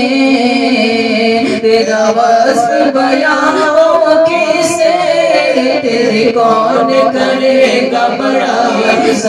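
Men singing an Urdu devotional naat in long, held, wavering melodic lines with no clear words.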